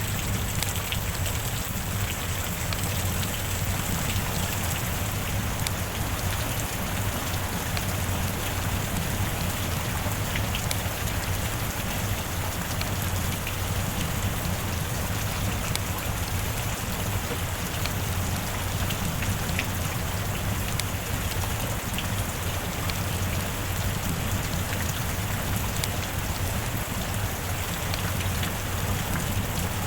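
Steady heavy rain falling, with individual drop hits ticking sharply through the even hiss and a steady low rumble underneath.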